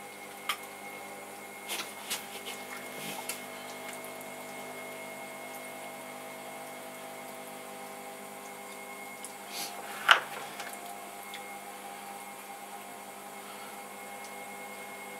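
An electric pottery wheel runs steadily with a motor hum of several steady tones. In the first few seconds, wet clay squelches and clicks under the potter's hands as it is shaped on the spinning hump. A single sharp click about ten seconds in is the loudest sound.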